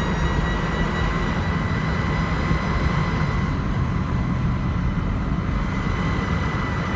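2002 Jeep Grand Cherokee driving, with a steady high-pitched drive whine over the low rumble of engine and road. The whine rises slightly in pitch over the first couple of seconds, then holds. It comes and goes while moving and stops when the vehicle stops.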